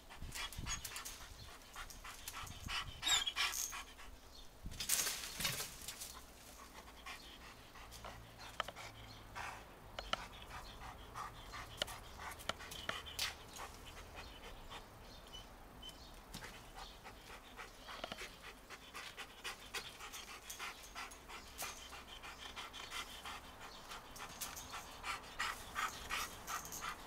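Dog panting rapidly, with a few louder noises about three and five seconds in.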